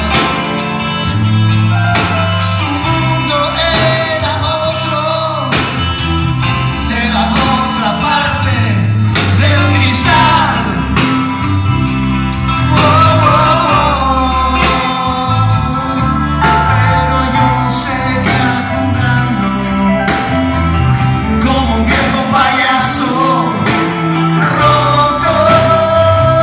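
Live rock band playing a song: sung lead vocals over electric guitars, bass guitar and drums with a steady beat.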